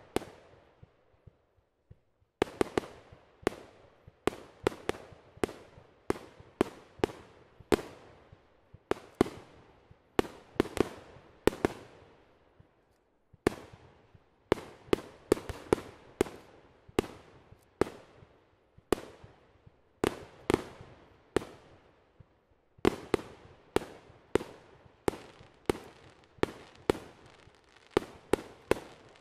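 Aerial fireworks bursting in quick succession: a steady run of sharp bangs, about two a second, each with a short fading tail. There are brief pauses near the start and about halfway through.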